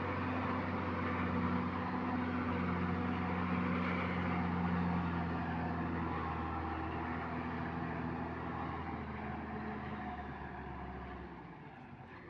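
Heavy construction vehicle's diesel engine running steadily, fading away near the end.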